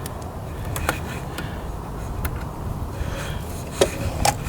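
Scattered light clicks and knocks from hands handling coolant hoses and fittings on the thermostat housing, over a steady low hum.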